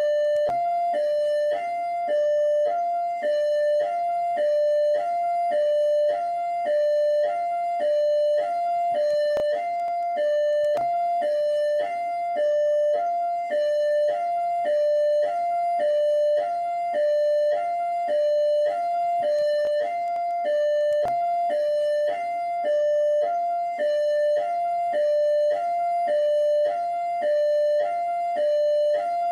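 PMERJ police siren sounding its hi-lo tone: two pitched tones, a higher and a lower, alternating steadily at about one high-low pair a second.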